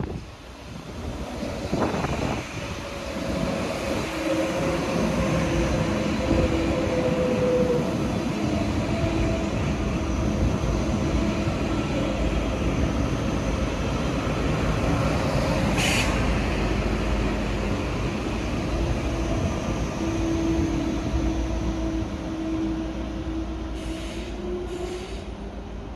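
An ICE T (Class 411) electric multiple unit rolls into the station and slows to a stop. Its wheels rumble on the rails under steady whining tones that shift in pitch as it slows. A single sharp clank comes about sixteen seconds in, and a couple of lighter clicks come near the end.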